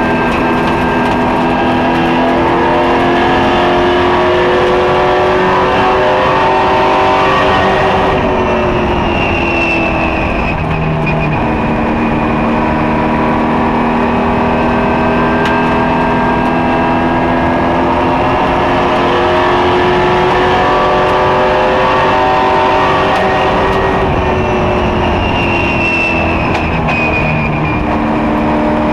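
Ethanol-fuelled super truck's racing engine running hard, heard from inside the cockpit at speed. Its pitch dips about eight seconds in and again near the end, then climbs back.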